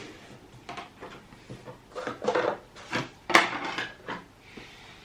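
Bicycle hub parts being handled on a workbench: light clicks, taps and rustling, with a sharper knock about three seconds in.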